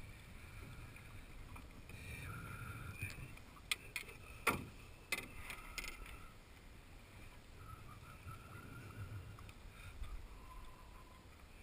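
Quiet lapping and sloshing of lake water against a small boat, with a few short sharp knocks or splashes about four to five seconds in.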